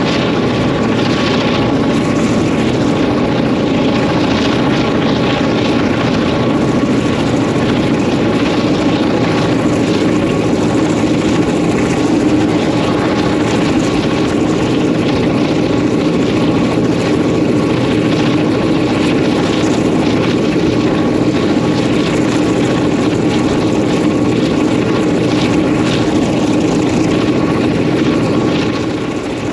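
Roots-blown EMD 567-series two-stroke diesel locomotive engine running steadily as the locomotive travels, heard from on top of the locomotive.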